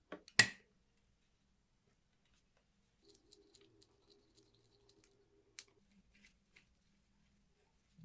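Sharp metallic clicks from the mechanism of a restored Schubert arithmometer, a hand-cranked mechanical calculator. There are two clicks at the start, the second loud, then a few seconds of faint light ticking and another single click.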